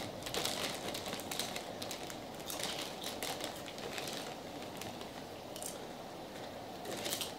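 Potato-chip bags crinkling as hands dig into them, mixed with chips crunching while being eaten, in irregular crackly bursts over a steady low background noise.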